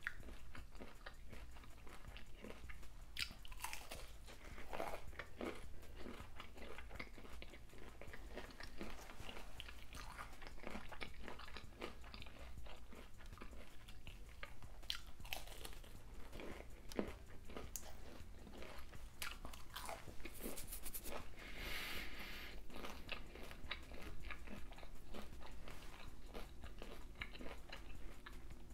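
Close-up crunching and chewing of an air-fried pickle spear in a hot Cheetos coating: irregular crisp crunches as the crust breaks, with softer chewing between them.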